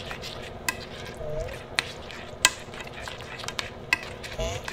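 A hand in a thin plastic glove mixing a wet, pasty spiced mixture in a ceramic bowl: continuous squishing and stirring, with a few sharp clicks.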